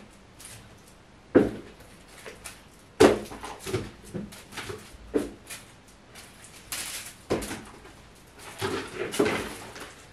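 Irregular thumps and scuffs of a cat pouncing, landing and scrambling on carpet while chasing a feather wand toy, with two sharper knocks early on and a flurry of scuffling near the end.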